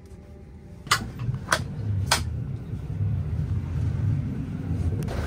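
Three sharp footsteps about half a second apart, then a steady low rumble, as a person walks off an airliner.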